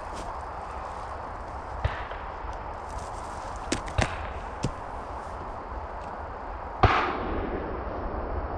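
Distant shotgun fire: a few sharp cracks, then a louder shot about seven seconds in whose report rolls away over a second or two.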